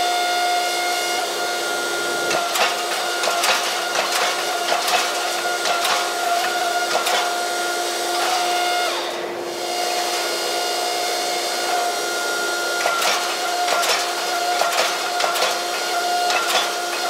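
Hydraulic forging press running, its pump giving a steady pitched whine that shifts as the press works a forge-welded steel billet. Irregular sharp clicks and crackles are heard throughout.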